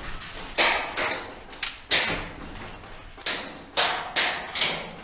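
Airsoft gunfire: about eight sharp single cracks at irregular intervals, each with a short ringing tail.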